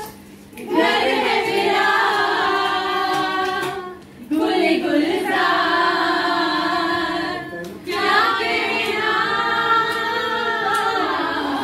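A group of women singing a song together without accompaniment, in three long phrases with short pauses between them.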